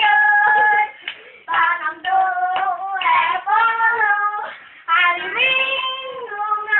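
Children singing a clapping-game song in a chanting tune, with their hands clapping together in time.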